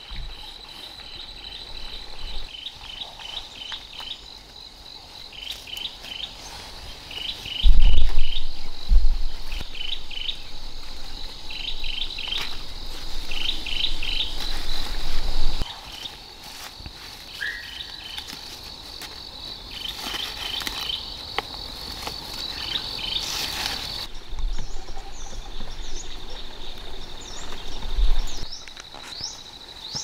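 Insects droning steadily in a high, even note, with birds chirping in short repeated bursts. A loud low rumble comes about eight seconds in, with a smaller one near the end.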